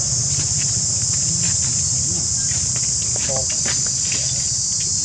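A steady, high-pitched chorus of insects chirring without a break, over a steady low rumble.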